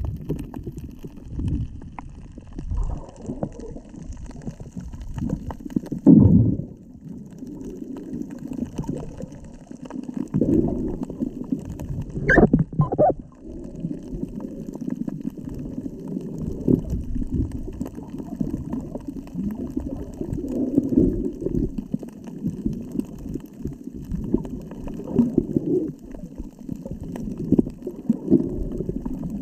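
Seawater sloshing and gurgling at the shore in an uneven low churning rumble, with a brief sharp knock about twelve seconds in.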